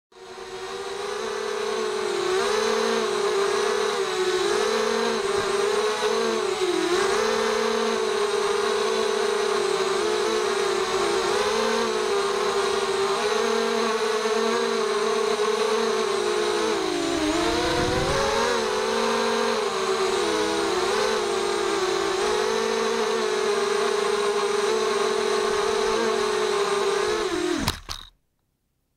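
Electric motors and propellers of a 250-size FPV racing quadcopter (RCX H1806 2400KV motors, 5-inch props) whining in flight, the pitch rising and falling constantly with the throttle. Near the end the pitch drops and the sound cuts off suddenly as the motors stop when the quad comes down.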